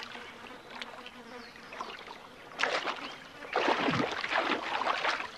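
Water splashing as a hippo calf plays in a pool: a short splash about two and a half seconds in, then a longer spell of splashing and sloshing about a second later.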